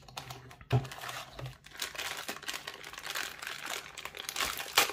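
Clear plastic packaging bag crinkling as it is handled and pulled from a cardboard box, with a light knock just under a second in.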